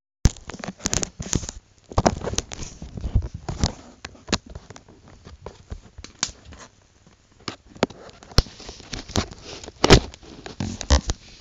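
Camera handling noise: irregular knocks, taps and rustles as the camera is moved about, starting abruptly just after silence, with the loudest knock near the end.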